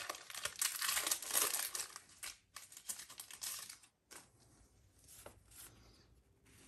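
Foil Pokémon booster pack wrapper crinkling as it is handled, densest over the first couple of seconds, then quieter rustles and light clicks of trading cards being handled.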